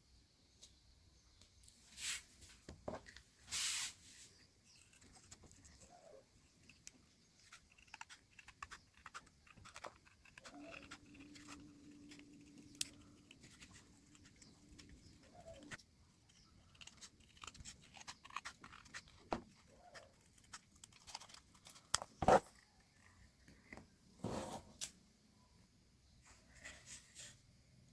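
Quiet, scattered taps, scrapes and rustles of cardboard and small parts being handled and worked by hand, with a few sharper knocks. A faint steady hum runs for about five seconds in the middle.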